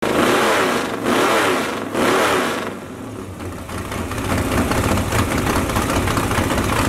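A car engine revved three times in quick succession, each rev climbing and falling back, then running on with a rough, uneven rumble.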